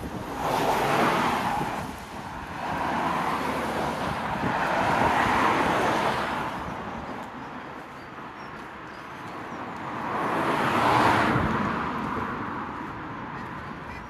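Cars passing on the road, their tyre noise swelling and fading three times, loudest about a second in, around five seconds in and near eleven seconds.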